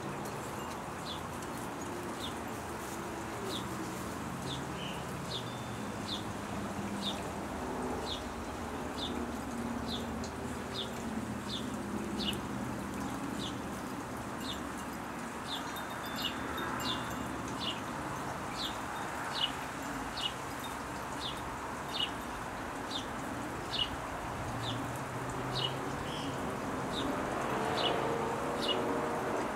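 A small bird's high, short chip call, repeated steadily about every two-thirds of a second, over a low steady outdoor background noise.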